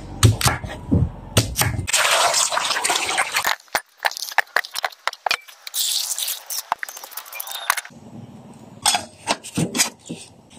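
A run of cooking sounds: a knife chopping a karlang root on a wooden board with knocks, then water pouring over the roots in a pot with a hiss, then knocks as a metal lid is set on the pot.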